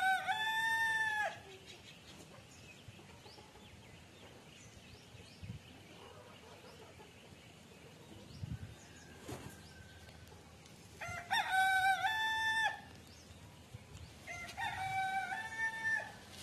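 Roosters crowing: one crow ends about a second in, a second long crow comes about eleven seconds in, and a third follows near the end.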